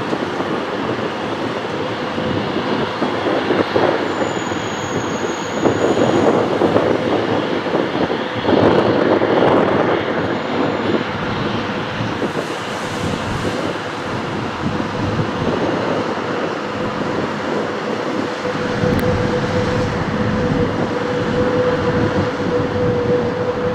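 Jet engines of a departing Airbus A320-family airliner climbing out after takeoff: continuous engine noise that swells for a few seconds early in the climb, with a steady tone added near the end.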